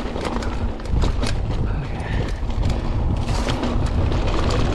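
Mountain bike rolling down a dirt trail: wind buffeting the microphone as a constant low rumble, with frequent clicks and rattles from the bike over the rough ground.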